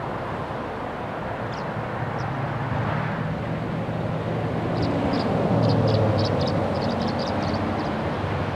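Motor vehicle traffic: a steady engine and road hum that swells as a vehicle passes, loudest about six seconds in, then eases off. Clusters of short high chirps come in over it in the second half.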